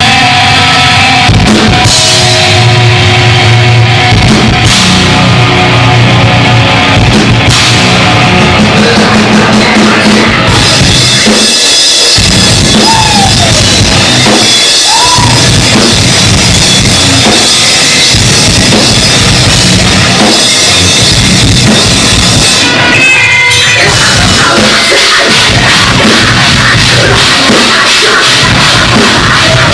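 Metalcore band playing live and loud: heavy guitars and a drum kit pounding out an instrumental passage, with no vocals.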